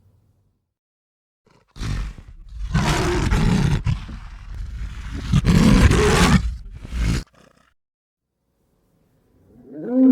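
A large animal's loud, rough call lasting about five seconds, swelling twice, then a shorter pitched call falling in pitch begins near the end.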